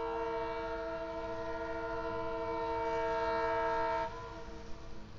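Locomotive air horn sounding one long blast of about four seconds, a chord of several steady tones, cutting off sharply about four seconds in. The horn is that of the approaching EMD GP38-2 diesel locomotive.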